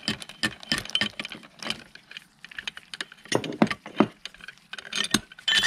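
Rapid metallic clicking and clinking from a threaded-rod clutch spring compressor being turned down on a steel clutch drum of a Mercedes 722.6 automatic transmission. A few sharper metal clinks that ring briefly come near the end.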